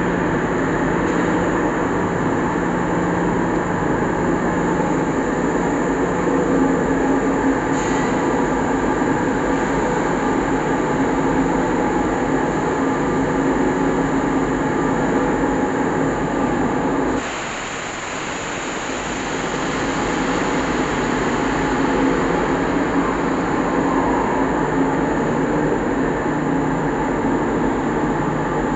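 Steady, loud din of factory machinery on a water-heater tank enamel-coating line, with an abrupt change in its tone about 17 seconds in.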